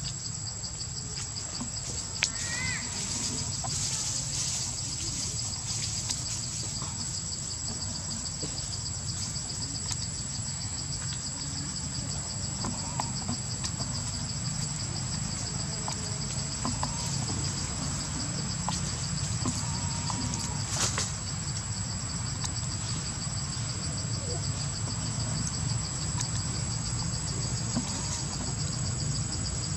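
Steady chorus of insects, crickets or cicadas, holding two constant high pitches throughout, over a low rumble, with scattered light clicks and a sharper click about twenty seconds in.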